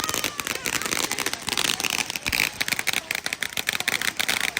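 Fireworks crackling: a dense, rapid run of sharp pops and crackles that keeps up without a break.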